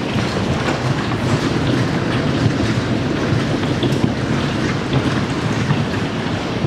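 Hailstorm at its peak: a dense, steady roar of falling hail, with many sharp clicks of single hailstones striking hard surfaces.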